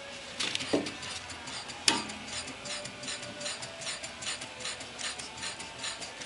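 Parking brake pedal assembly's ratchet clicking as the pedal is worked down, a steady run of sharp clicks about three to four a second, with one louder click about two seconds in.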